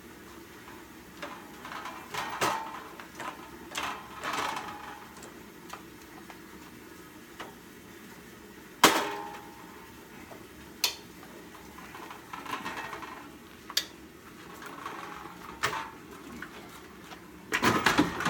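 Scattered knocks and clatter of heavy equipment being handled, with one sharp knock about nine seconds in and a burst of clattering near the end as a portable generator is loaded into a van.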